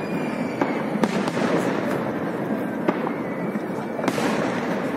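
Aerial firework shells bursting in the sky with several sharp bangs, a cluster of them about a second in, over a steady background noise.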